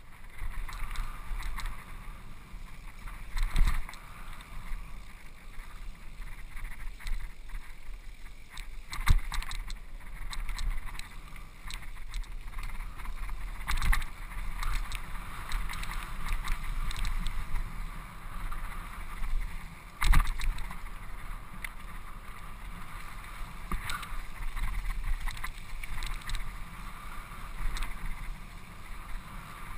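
Mountain bike riding fast down a dirt forest trail, picked up by an action camera in its housing: steady wind rush and tyre rumble, with several sharp knocks and rattles as the bike jolts over bumps and roots.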